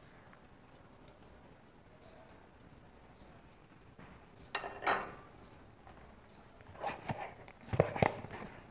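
A spoon clinks against a small glass jar about halfway through, then the knocks and rustle of a paper packet being handled near the end. Faint, short high chirps repeat throughout.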